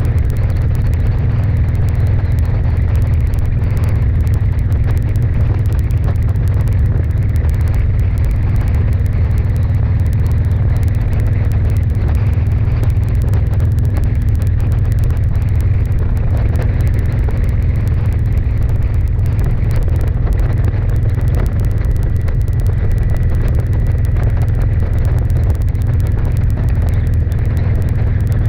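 Steady low rumble of a vehicle driving at speed on a highway, road and engine noise mixed with wind buffeting the microphone.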